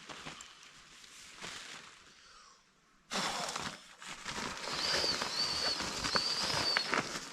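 Outdoor woodland sound: soft rustling at first, then, after an abrupt change about three seconds in, louder background noise with a bird giving three short, high, arched whistled notes.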